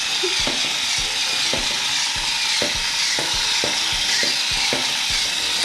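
Little Live Pets battery-powered toy turtles running, their walking mechanism clicking evenly about twice a second over a steady hiss and faint whine from their small motors and propellers.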